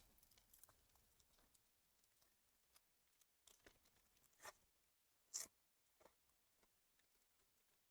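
Faint tearing of a baseball card pack wrapper being ripped open: two brief rips, about four and a half and five and a half seconds in, with a few faint crinkles between.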